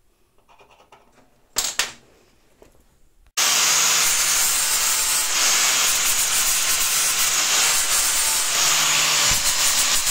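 Angle grinder grinding down the end of a steel chisel clamped in a vise, shaping it to fit into a hammer head's eye. The grinding starts abruptly about a third of the way in and runs steady and loud, after one short knock.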